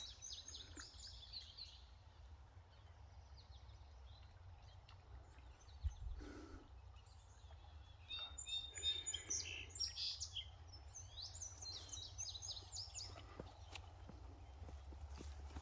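Small songbirds chirping in quick runs of short high notes, a flurry at the start and another busier one from about eight seconds in, over a faint low rumble. A single thump about six seconds in.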